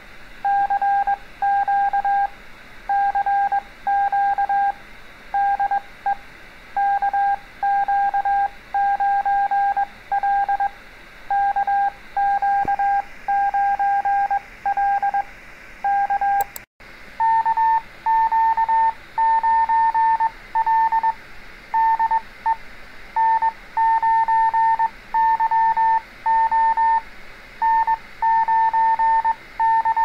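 Morse code (CW) sent slowly as on-off beeps of a single steady tone: first the CQ call 'CQ CQ CQ DE KQ9L KQ9L KQ9L K'. After a short click about 17 seconds in, the answer 'KQ9L DE N9YO N9YO AR' follows on a slightly higher tone.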